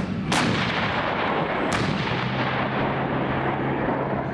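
Tank main gun firing: two heavy booms about a second and a half apart, each followed by a rolling rumble. A low steady engine hum follows.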